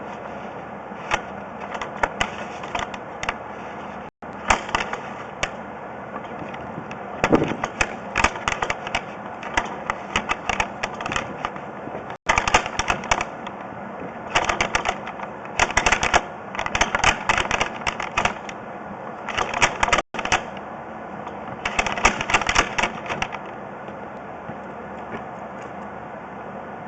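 Sewer inspection camera being pushed down a vent stack into the sanitary line: clusters of rapid clicking and rattling as the push cable and camera head knock through the pipe, over a steady background hiss. The clicking stops a few seconds before the end.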